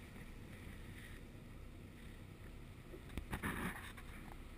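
Faint, steady low rumble of a sportfishing boat under way, its engine and wake heard from the stern, with a light hiss. A brief louder rush of noise comes about three seconds in.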